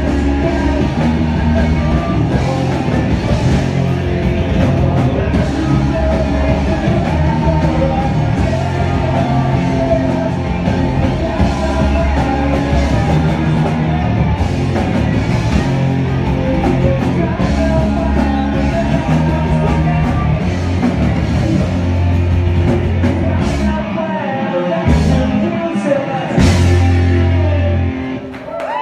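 Live rock band playing loud: electric guitars, bass and drums, with vocals. Near the end the playing breaks off a few times in short stops, holds one last stretch and ends.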